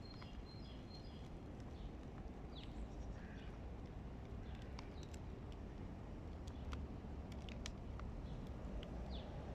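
Hooded crow pecking and tearing at a piece of raw chicken, its beak striking the meat in scattered sharp clicks over a low steady rumble. Small birds chirp faintly near the start and near the end.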